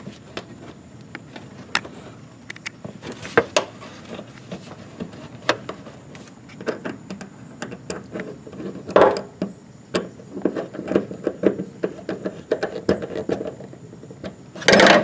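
Worm-drive hose clamp on a fuel line being tightened with a nut driver, with hands handling the rubber hose and pump fittings: scattered sharp clicks and taps, a run of quick ticks in the last few seconds, and a louder scuff right at the end.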